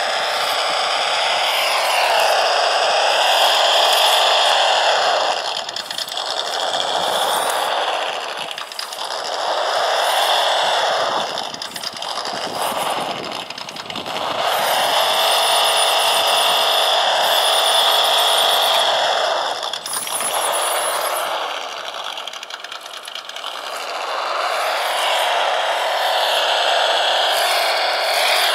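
Simulated truck engine sound from a PRC QX-4 mini rock crawler's onboard sound module, played through its small speaker, revving up and dropping back several times as the throttle is worked, together with the whine of its electric drive.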